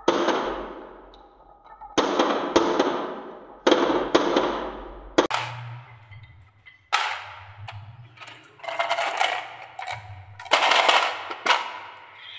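Marbles rolling down a wooden track and pouring into a plastic toy dump truck's bed, clattering in a burst every second or two, each starting suddenly and then fading.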